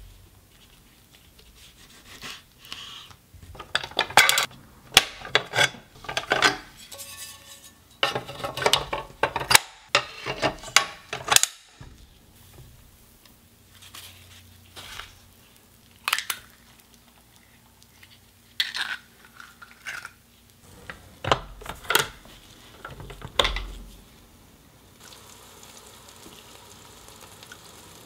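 Close-miked kitchen food-prep sounds: a dense run of sharp clicks and knocks of a knife and ingredients on a wooden cutting board, then sparser scrapes and knocks as the sandwich maker's nonstick grill plate is buttered and the appliance is handled. Near the end a faint steady hiss sets in.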